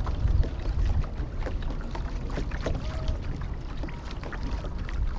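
Lake water lapping and splashing against a kayak hull, with many short splashes. Wind rumbles on the microphone throughout.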